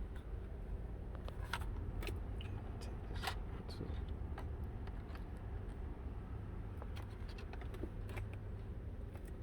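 Steady low rumble of a car running, with scattered light clicks and jingles, like keys and loose trim being handled, at irregular moments.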